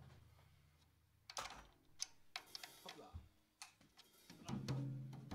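A low ringing note dies away, then a few faint clicks and taps of instruments and gear being handled, and another low note rings out and swells near the end.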